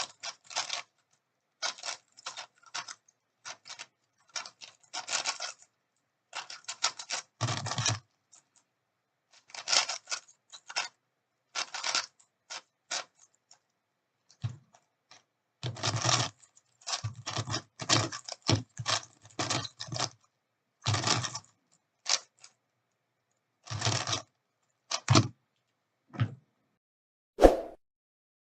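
Rapid plastic clacking of a speedcube being turned, in many short bursts from a fraction of a second to about a second long, separated by silences.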